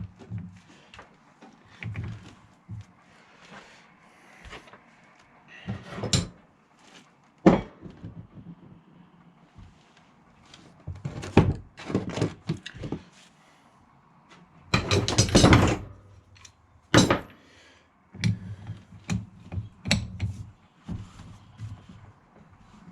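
Hand tools and parts being handled on a workbench: irregular knocks, clanks and clatters, with a longer rattling scrape about fifteen seconds in.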